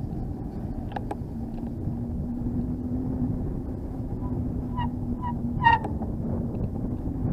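Wind and tyre noise on the microphone of a camera riding fast down an asphalt road, with a steady low hum that slowly rises in pitch as speed builds. A few short squeaks come in the middle, and there is one sharp click a little before the end.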